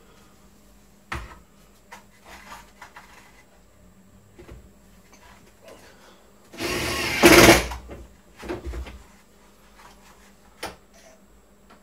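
Cordless drill running in one short burst of about a second near the middle, driving a screw into the wooden cabinet, with a shorter burst just after. Scattered clicks and knocks of parts being handled.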